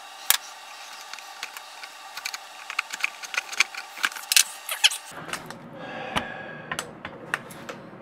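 Irregular run of small metallic clicks and rattles, dense for about five seconds and then sparser: pliers and a wire working through a calcium-clogged metal tube in a coffee maker's base.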